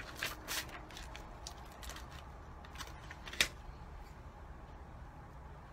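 Light rustling and small ticks of paper and card being handled by hand, with one sharper tap about three and a half seconds in.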